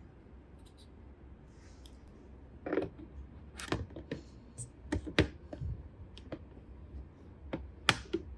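Small hard objects being handled during a toy unboxing: a run of irregular clicks and taps, like plastic pieces knocking together and being set down. They start after a couple of quiet seconds, with the sharpest taps in the second half.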